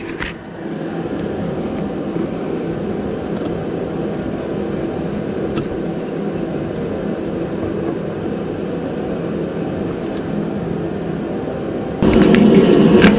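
Steady mechanical drone from a running machine in the background, with a few faint clicks of handling; the drone gets louder about twelve seconds in.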